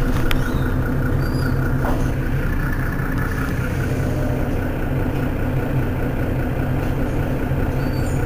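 Mercedes-Benz Citaro city bus engine idling steadily while the bus stands at a stop.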